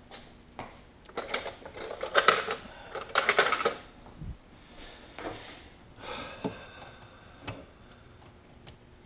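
Metal hand tools clinking and rattling as they are rummaged through, in three clattering bursts over the first few seconds, then a few scattered single clicks.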